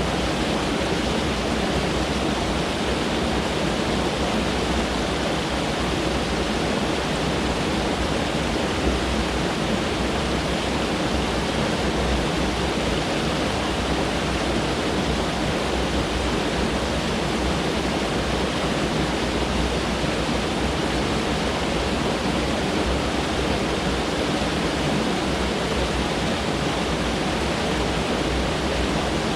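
Mountain stream rushing over rocks close by: a steady, full rush of water with no change.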